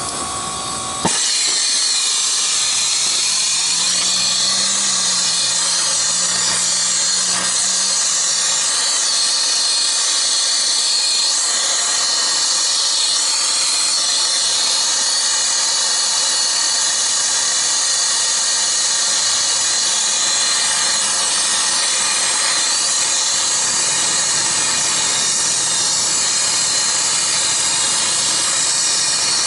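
Turbo-tip air-acetylene torch burning with a steady hiss as it heats copper refrigeration tubing. It starts suddenly about a second in.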